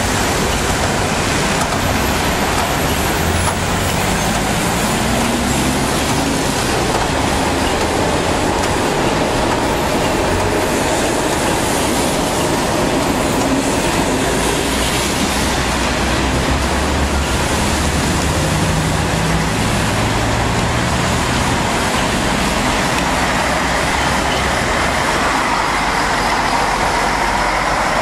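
Volvo B10M Mk2 diesel buses moving along a wet road, their engines rising in pitch twice as they pull away, over a steady hiss of traffic and tyres on wet tarmac.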